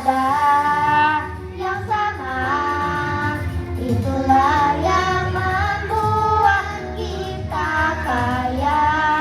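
Children's choir singing long held notes over musical accompaniment, with short breaks between phrases.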